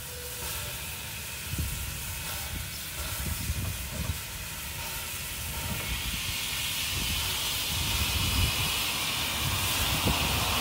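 Caledonian Railway No. 419, a 0-4-4 tank steam locomotive, moving slowly past with a steady hiss of escaping steam that grows louder from about six seconds in. The tail of its whistle fades away at the start.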